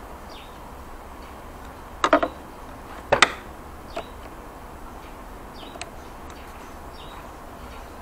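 Screwdriver tightening the screw on a scooter battery's negative terminal: a few sharp metal clicks and knocks, the loudest about two and three seconds in, with fainter ticks between.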